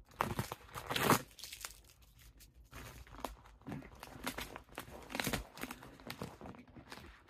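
Padded plastic jiffy bag being crinkled and torn open by hand. Irregular crackling rustles, loudest in a couple of bursts about a second in, then smaller crinkles.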